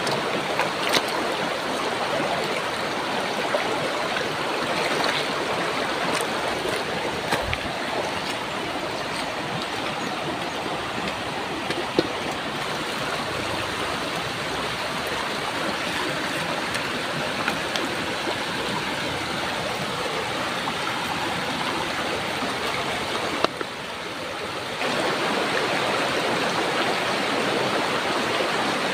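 Shallow rocky river running over stones: a steady rushing, babbling flow, with a few light knocks here and there. It dips briefly about three-quarters of the way through, then comes back a little louder.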